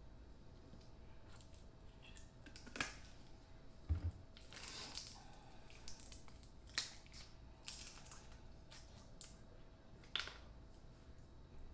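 Barbecue sauce bottles being handled and poured into a bowl: scattered clicks and knocks, with one low thump about four seconds in and sharp clicks later on.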